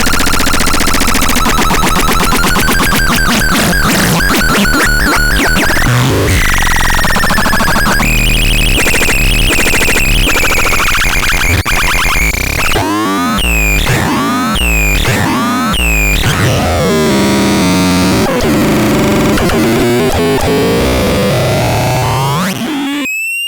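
Electronic synthesizer making loud, harsh, noisy sounds: dense, clashing tones with pitches that slide up and down, including a run of about five falling swoops about a second apart near the middle. It cuts off suddenly at the very end.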